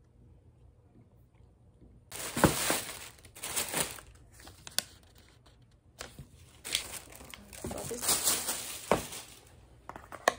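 Thin plastic takeout bag and paper packaging being handled and opened: irregular crinkling and rustling in bursts, starting about two seconds in, with a few sharper crackles.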